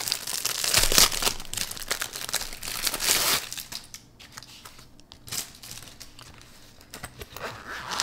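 Thin clear plastic wrapping crinkling and tearing as it is pulled off a fabric knife pouch, dense and crackly for about the first three seconds. After that only quieter handling of the pouch with scattered light clicks.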